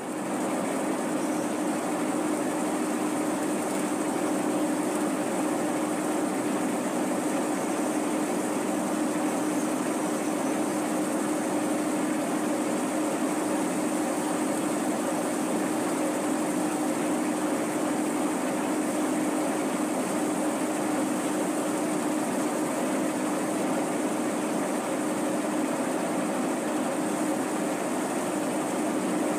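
Tractor engine running steadily at a constant speed: an even, unbroken hum with one constant tone.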